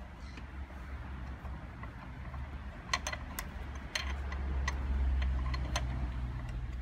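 Ratchet wrench clicking as a bolt on an engine mounting bracket is worked loose, with a few sharper metallic clicks in the second half. A low steady hum runs underneath and grows louder about four seconds in.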